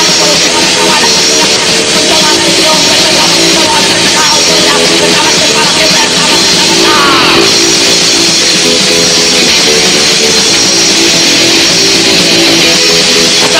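Loud punk rock music with electric guitars, playing without a break, with a short sliding pitch about seven seconds in.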